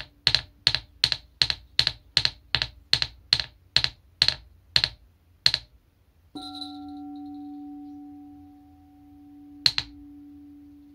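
Tingsha struck in a quick run of short, bright metallic strikes, about three a second, slowing and stopping about halfway through. Then a frosted crystal singing bowl is struck and rings with a steady low tone that slowly fades, with one more bright tingsha strike near the end.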